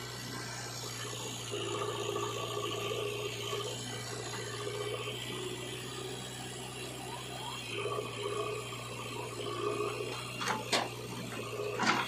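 Diesel engine of heavy machinery running steadily, with a higher whine that rises twice as it works. A few sharp knocks come near the end.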